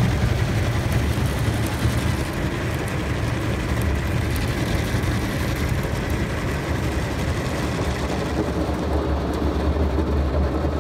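Automatic car wash's rotating brushes and water spray working over the car body, heard from inside the cabin as a steady, loud, deep washing noise.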